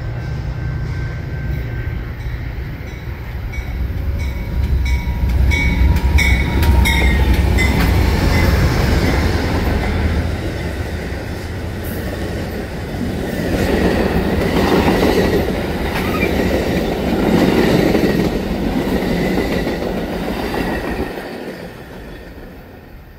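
Amtrak passenger train passing close at speed. First comes the low drone of its two GE Genesis diesel locomotives, with a run of sharp wheel clicks. Then the rumble and rhythmic clatter of the Superliner bilevel cars' wheels on the rails, fading near the end.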